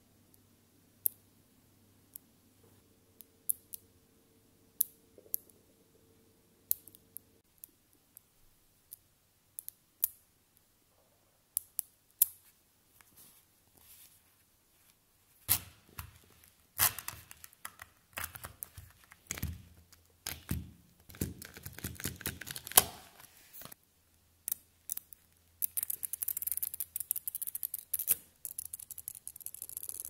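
Neodymium magnetic balls snapping together in sharp metallic clicks, single and widely spaced at first. About halfway through the clicks turn dense and clattering as clumps of balls are worked, and near the end they run into a fast continuous crackle of many balls clicking into place.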